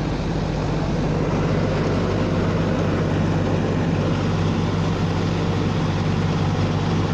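Rice combine harvester running steadily: an even engine and machinery hum with no change in pace.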